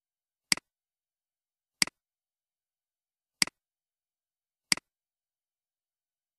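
Four single computer mouse clicks, about a second and a half apart, each a sharp click followed at once by a softer second tick.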